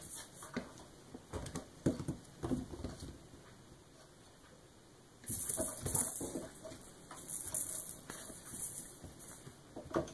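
Kittens tussling on a carpeted floor. There are soft thumps and patter of paws in the first few seconds, then bursts of scratchy rustling as they scuffle.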